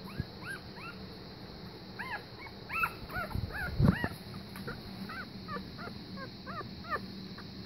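Week-old German Pinscher puppies squeaking and whimpering: many short rising-and-falling cries, several pups at once, overlapping.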